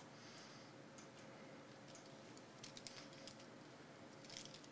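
Near silence, with faint, scattered clicks of a computer keyboard and mouse. The clicks are bunched about two and a half to three and a half seconds in, and again just before the end.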